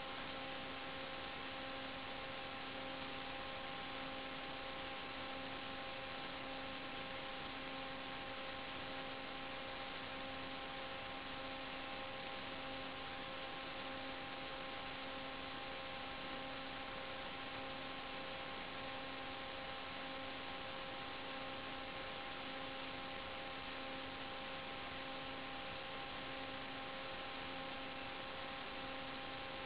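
Steady electronic hum and hiss, a few fixed tones over even static, unchanging throughout. It does not follow the quadcopter's throttle, so it is noise on the recorded FPV video link's audio rather than the motors.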